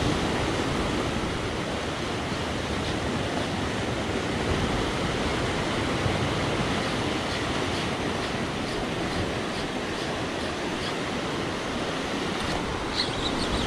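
Ocean surf washing and breaking over a rocky shore: a steady rush of seawater. Faint regular ticks sound over it in the second half.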